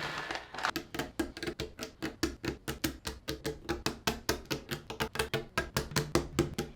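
Mechanical keyboard switches being pressed one after another into the plate of a Higround Summit 2.0 barebones keyboard, a quick run of sharp clicks, about five or six a second, starting under a second in.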